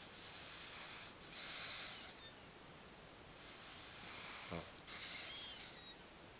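Pug snoring in its sleep: four hissy, wheezy breaths, one ending in a short rattling snort about four and a half seconds in.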